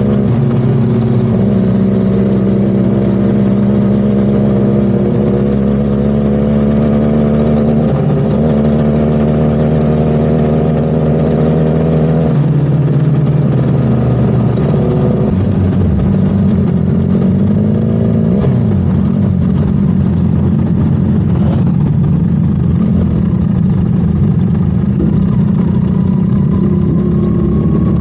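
Motorcycle engines running at road speed with wind rushing past. The engine note holds steady, then shifts pitch abruptly a few times about midway.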